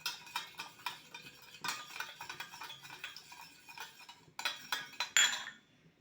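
Metal spoon clinking and scraping against a bowl in quick, irregular taps, as when measuring and stirring in a dressing. A louder clatter of kitchenware comes about four and a half to five and a half seconds in.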